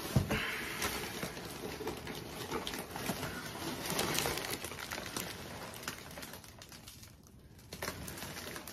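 Crumpled brown kraft paper rustling and crackling as a paper-wrapped plant is lifted out of its shipping box and handled, with a thump just after the start. The rustling eases off briefly about seven seconds in.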